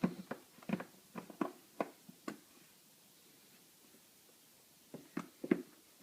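Light clicks and knocks of a new K&N air filter being worked into a motorcycle's airbox: a quick run of taps in the first couple of seconds, a pause, then three more near the end.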